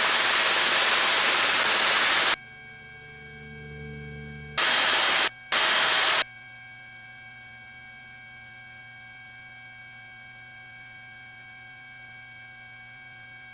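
Helicopter headset intercom: loud bursts of hiss as a microphone opens and lets in cabin noise, once for about two seconds at the start and twice more briefly around the middle, over a faint steady hum with fixed tones.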